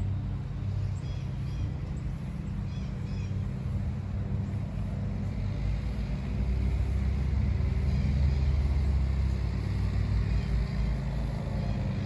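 Steady low outdoor rumble that grows louder about six seconds in and eases off toward the end, with a few faint high chirps in the first few seconds.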